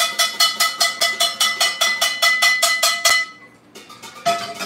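A frying pan banged rapidly with a utensil as a cheer: about seven metallic clangs a second with a steady ringing tone. It stops suddenly about three seconds in, and a single clank follows about a second later as the pan is set down on the stove.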